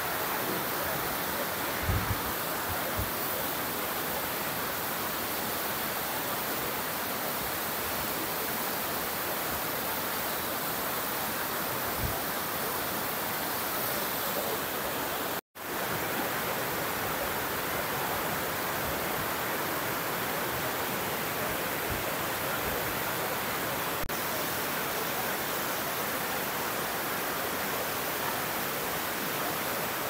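Steady rush of a waterfall, dropping out for an instant about halfway through.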